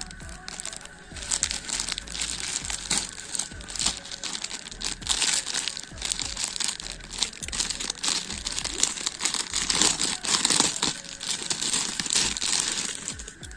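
Packaging crinkling and rustling as it is handled and opened, a dense run of irregular crackles that is loudest about ten seconds in.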